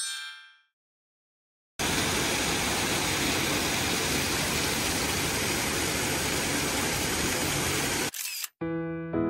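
A steady rushing noise at an even level, cut in abruptly about two seconds in and cut off just after eight seconds, with music fading out at the start and coming back near the end.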